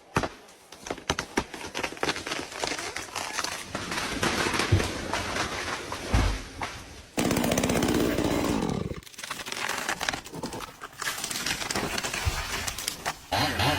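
A felled tree's wood cracking and branches snapping and crashing as it comes down, with a heavy thud about six seconds in. A motor runs briefly in the middle.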